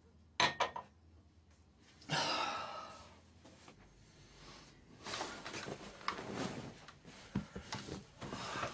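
A drinking glass set down on a sink with a few quick clinks, then a short hissing rush about two seconds in. From about five seconds on, bedclothes rustle as someone climbs onto a bed, with one thump.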